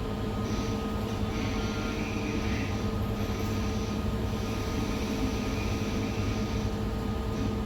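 A ferry's diesel engines running steadily, a continuous low rumble with a constant hum.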